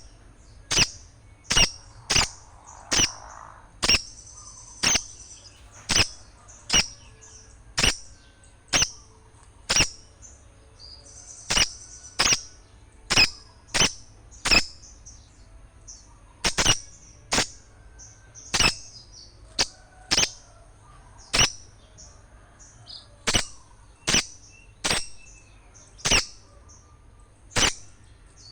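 Small birds calling: loud, sharp chips repeating about once every half second to a second, with fainter high twittering between them. This is a noisy small-bird call played as a lure to draw birds in.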